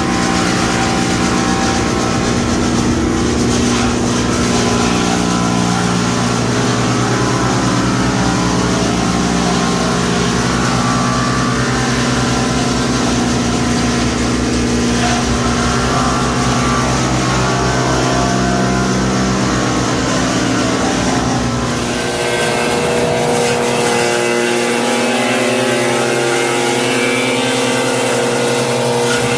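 30 hp electric-driven wood chipper with hydraulic feed running loud and steady while chipping tea tree. About 21 seconds in, the deep rumble drops away and the pitch of the running changes.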